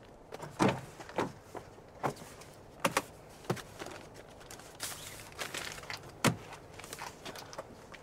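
Pickup truck door being unlatched and opened, then hands working at the centre console inside the cab: a series of sharp clicks and knocks, with a heavier thunk a little past six seconds.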